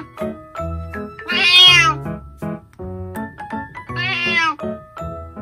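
Elderly calico cat meowing twice: a long, loud meow about a second in and a shorter one near the four-second mark. Light background music of short plucked notes plays throughout.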